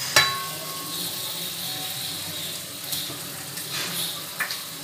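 Raw chicken pieces going into hot masala in a kadhai, sizzling steadily. Just after the start a sharp metallic clank rings on briefly, and a few lighter knocks follow later.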